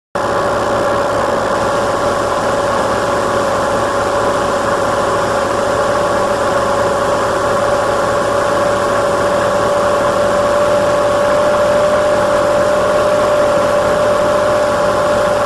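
A steady machine whine that holds one pitch without change, with fainter overtones over an even hiss.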